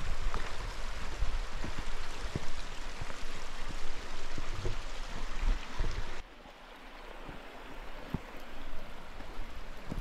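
Rocky mountain brook flowing, a steady rushing of water with scattered low thumps. About six seconds in the water sound drops suddenly to a quieter rush that slowly grows louder again.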